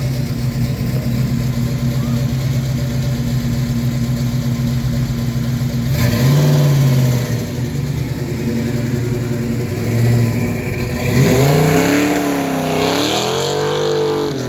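A car engine idling steadily. It is revved briefly about six seconds in and again about ten seconds in, then gets a longer rev that rises and falls near the end.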